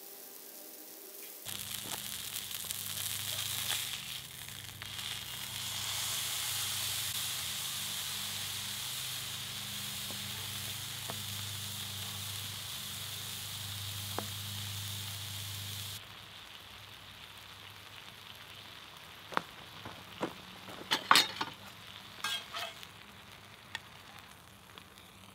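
Ground lamb patty sizzling on a hot steel griddle over charcoal. The sizzle cuts off abruptly about two-thirds of the way through, leaving a quieter stretch with a few sharp clicks near the end.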